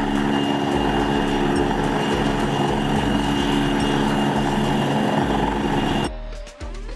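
PZL W-3 Sokół helicopter hovering low, its rotor and turbines running steadily with a thin high whine. About six seconds in the sound cuts off abruptly and gives way to short jingle music with a rising sweep.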